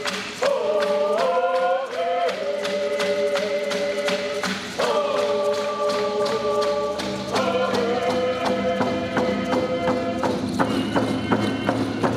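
Group ceremonial singing in long held, chant-like notes that change in phrases, over a steady drumbeat.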